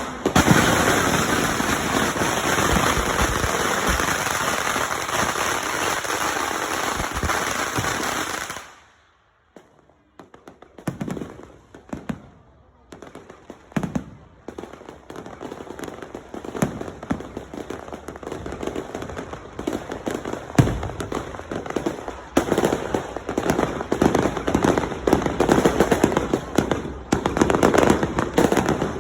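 Fireworks and firecrackers going off. A dense, continuous crackle for the first eight or nine seconds cuts off suddenly. Scattered bangs follow, then the bangs build again into rapid crackling over the last several seconds.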